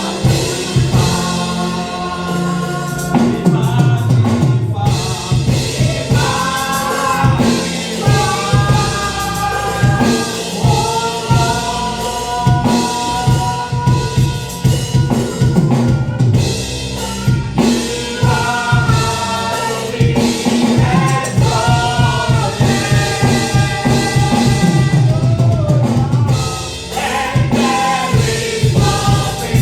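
Live gospel worship music: voices singing long held notes together over a drum kit playing a steady beat.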